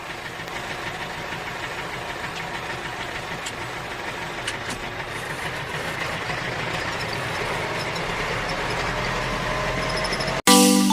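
A small motor running steadily with a rattly, noisy sound, slowly getting a little louder, then cutting off suddenly near the end.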